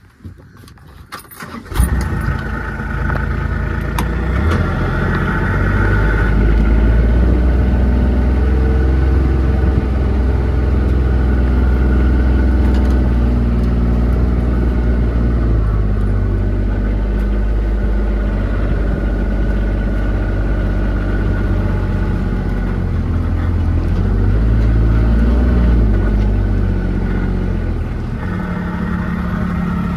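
A motor vehicle's engine starting about two seconds in, after a few clicks, then running steadily as the vehicle drives off, its pitch rising and falling slowly with speed.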